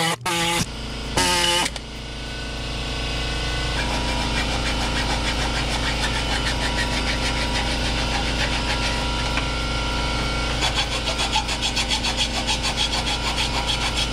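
AirCat pneumatic reciprocating air saw cutting through the car's sheet-metal frame, running steadily, with a rapid even chatter in the last few seconds.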